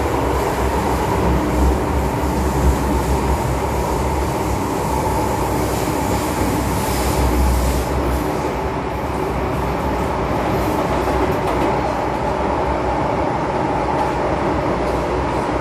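Hong Kong MTR M-Train heard from inside the car while running: a steady rumble of wheels and running gear with a steady whine over it. The deep rumble is heaviest for the first half and eases after about nine seconds.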